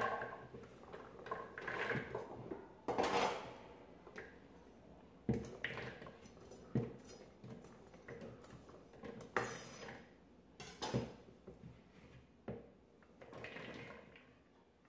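A knife blade scraping chopped carrots and celery across a wooden cutting board into a bowl: a string of irregular scrapes and sharp taps of the blade on the board.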